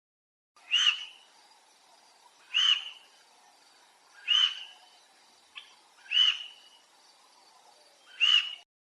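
An animal calling: a short, high call repeated five times at even spacing, roughly every two seconds.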